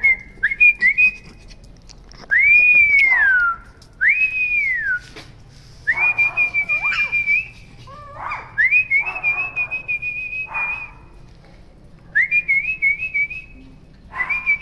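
A person whistling in short phrases of one to two seconds: some notes arch up and fall away, others are held on one high pitch with a slight warble, and a run near the end has quick repeated little dips.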